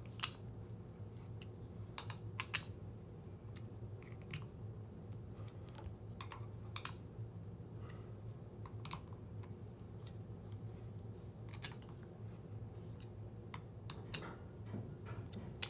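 Scattered light clicks and taps, a dozen or so spread irregularly, from tools and small motor parts being handled on a workbench, over a steady low hum.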